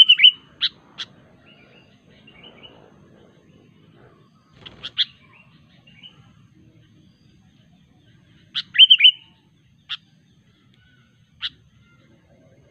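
Sooty-headed bulbul calling in short bursts of quick, sharp notes: one burst at the start, another about five seconds in and the loudest near nine seconds, followed by two single notes.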